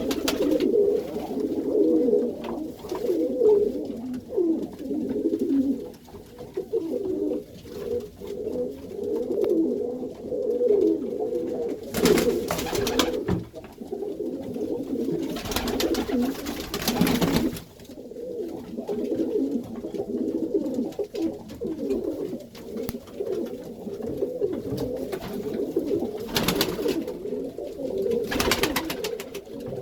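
Many Iranian pigeons cooing together in a loft, an unbroken low warbling chorus of overlapping calls. It is broken by a few short bursts of broad noise, one about twelve seconds in, a longer one around sixteen seconds, and two more near the end.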